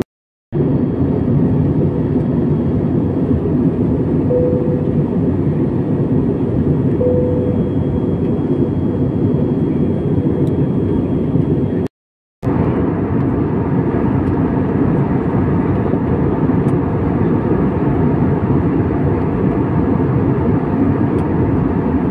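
Steady cabin noise of a jet airliner in flight, the engine and air rush heard from a window seat. It drops out to silence twice, briefly just after the start and again about halfway through.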